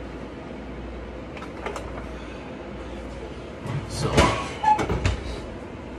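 Kitchen handling clatter as a disposable aluminium foil pan of oven-baked ribs is brought over and set down on the electric stovetop. A few light clicks come first, then a cluster of loud knocks and foil rattles about four to five seconds in.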